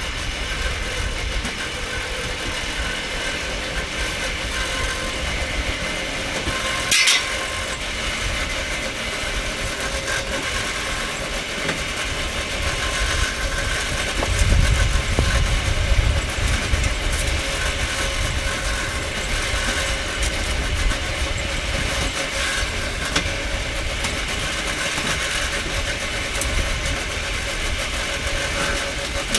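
Home-built motorised rail cart rolling along old railway track: steady wheel-on-rail running noise with a motor hum, a sharp click about seven seconds in, and a heavier low rumble around the middle.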